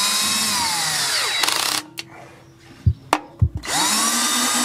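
DeWalt cordless drill run as a driver on transmission pan bolts. Its motor whines up, then drops in pitch and stops after about a second and a half. A few knocks follow as it is moved to the next bolt, and the drill spins up again for another bolt near the end.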